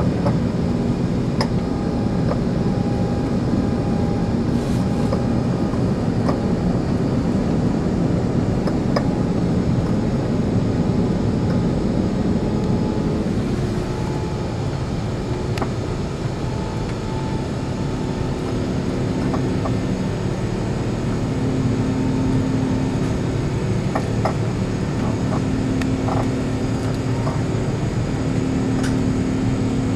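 Steady cabin drone of an Airbus A380 climbing after takeoff: engine and airflow noise heard from inside the passenger cabin, with a few faint clicks.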